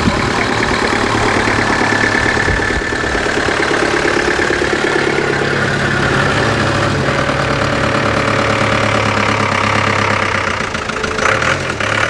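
An engine running at a steady speed: a continuous, even drone.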